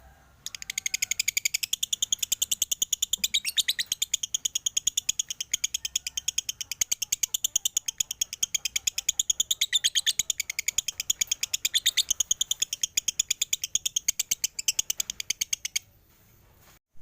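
Male lovebird chattering: a long, rapid run of sharp, evenly repeated chirps, several a second, that stops abruptly near the end. This is the chatter of a male working up toward 'konslet'.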